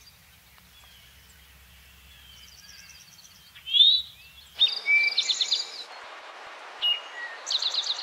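Eastern towhee recording: one rising "tow-hee" call about halfway through, then two "drink-your-tea" songs, each of a couple of notes ending in a fast trill, over a background hiss.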